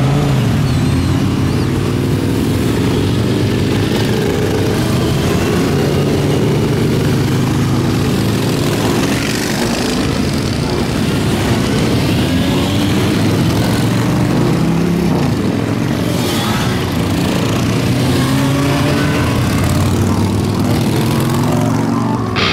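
A column of motorcycles riding past one after another, several engines running at once, their pitches rising and falling as bikes pull by.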